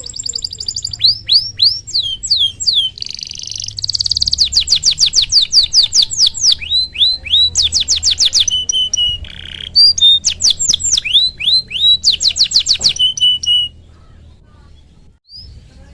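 Domestic canary singing a long, loud song of fast trills and repeated downward-sweeping whistled notes, broken by a few short buzzy notes; the song stops a couple of seconds before the end.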